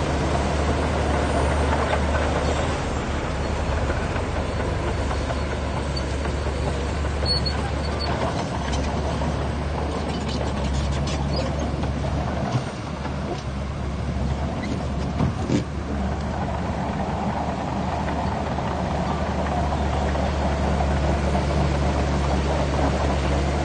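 Shantui bulldozer's diesel engine running steadily, with a brief dip about halfway through and a few light clanks around the middle.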